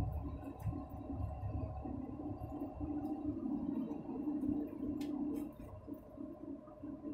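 A truck's engine and tyres droning inside the cab at highway cruising speed: a steady low hum with a wavering tone over it. The low rumble eases off about a second in.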